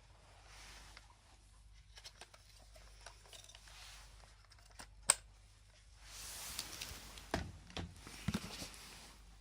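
Hands handling an alarm clock and its packaging: scattered small clicks and taps, one sharp click about five seconds in, then rustling with a few low knocks near the end.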